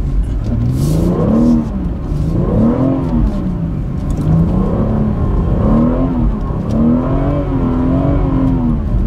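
The BMW 440i xDrive's turbocharged straight-six engine, heard from inside the cabin, revving up and down over and over, about every second and a half, as the car struggles through deep snow on the climb.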